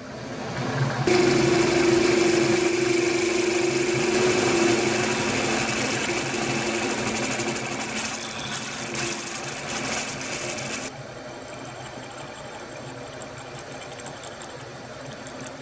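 Milling machine drilling a hole in a small metal block with a standard twist drill: a steady machine hum under a loud hiss that starts suddenly about a second in. The hiss cuts off abruptly about eleven seconds in, and the machine runs on more quietly.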